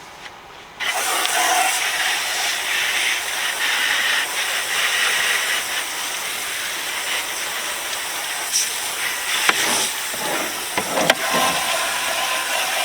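Water spraying hard from a hose onto metal tool box drawers, a steady hiss that starts about a second in, with a few light knocks later on.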